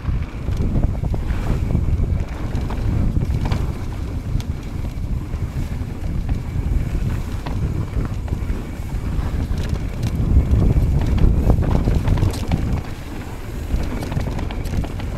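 Mountain bike rolling fast down a dirt and gravel trail: wind rushing over the microphone, with the crunch of tyres on loose ground and scattered clicks and knocks from the bike over bumps. The wind noise swells louder about two-thirds of the way through.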